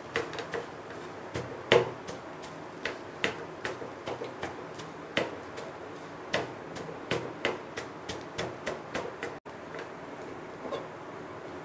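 Steel cup's rim striking down through shredded parotta onto the pan, an irregular run of sharp knocks about two to three a second that thins out near the end: the cup is being used to chop kothu parotta.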